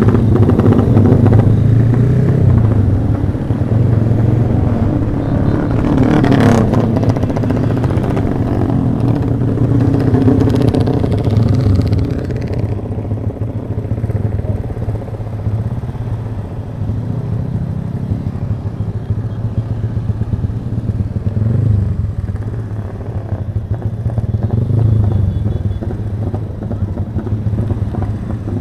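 Motorcycle engine running under way in a crowd of other motorcycles, with wind rushing past. It is louder for the first twelve seconds, then quieter as the throttle eases. A brief clatter comes about six seconds in.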